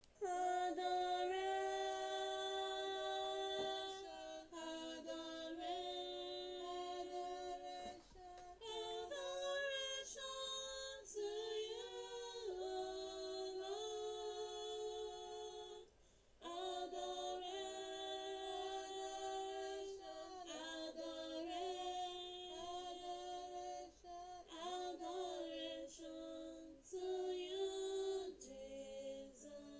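A woman's voice singing a slow melody with no instruments, holding long notes in phrases separated by short breaks.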